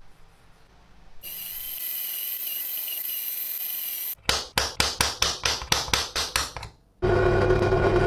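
Metalworking tool sounds: a steady high hiss, then a quick run of about a dozen scraping strokes at four or five a second. About seven seconds in, a drill press starts running and drills into a metal butterfly-knife handle blank held in a jig, with a loud, steady hum.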